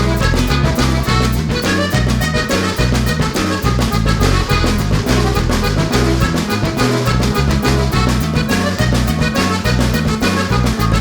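Background music: an upbeat instrumental track with a steady beat and a moving bass line, in a jazz or swing style.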